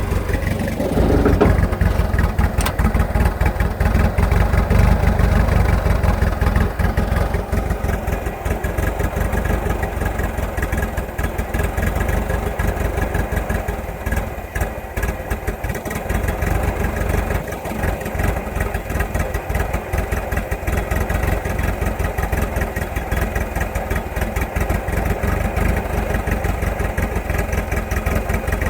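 1986.5 Nissan Hardbody pickup engine idling roughly, with an uneven, pulsing beat. It runs a little louder for the first several seconds, then settles.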